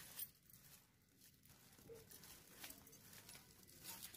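Near silence, with a few faint rustles and clicks of cloth brushing against the camera.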